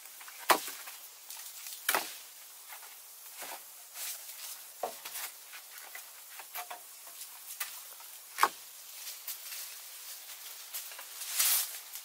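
Cut wooden poles knocking and clattering against each other as they are lifted from a pile and stood upright, a sharp knock every second or two, the loudest about half a second in and again about eight seconds in, with lighter taps between. A rustle near the end.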